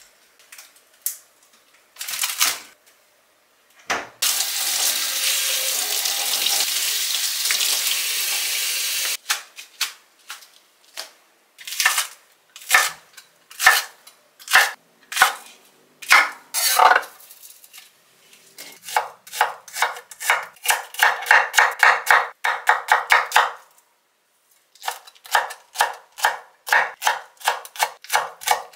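Chef's knife cutting green onion and then chopping cheongyang chili peppers on a wooden cutting board: a few separate knocks at first, then fast runs of chopping at about four to five strokes a second. A few seconds in, a steady rushing noise lasts about five seconds.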